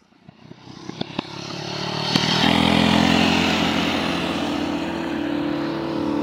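Mini bike engines running hard at steady high revs, getting louder over the first two seconds as the bikes come toward the microphone, over a steady hiss.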